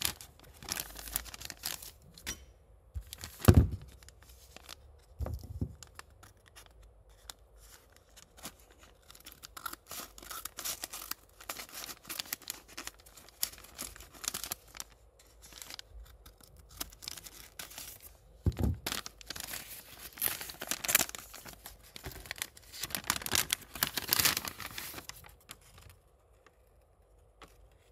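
Small packaging bags being handled and opened by hand: irregular crinkling, rustling and tearing of the packaging, with two dull knocks from handling, one a few seconds in and one past the middle.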